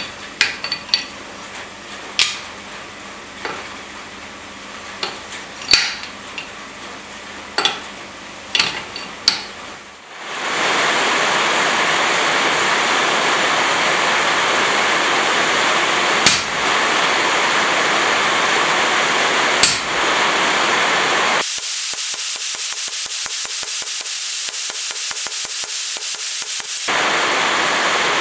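Steel dies and tool parts clink as they are set into a blacksmith's guillotine tool on the anvil, a scatter of sharp metallic clicks. About ten seconds in, a loud steady rushing noise takes over, broken by two sharp knocks. Near the end the noise turns higher-pitched with a fine rapid rattle.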